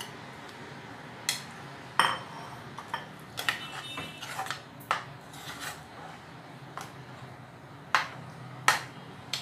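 A spoon scraping and knocking on a bowl and a cooking pot as chicken pieces are stirred into thick gravy: irregular clinks and knocks, about a dozen, one ringing briefly, over a faint low hum.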